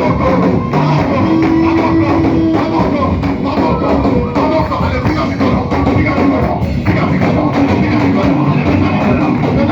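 Loud, steady praise music from a band, with electric guitar and drum kit playing.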